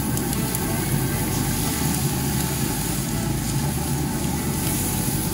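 RecTeq 590 pellet smoker running on its highest heat setting, with a steady mechanical hum and rush, while chicken thighs sear skin side down on the very hot grill grates.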